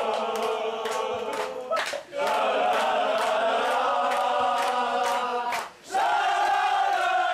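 A group of men singing a celebration chant together, with rhythmic hand-clapping about three times a second. The singing comes in long held phrases with two short breaks.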